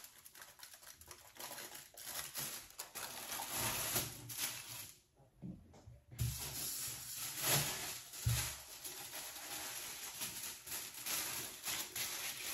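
Rustling and crinkling handling noise, with scattered clicks and a few soft low knocks.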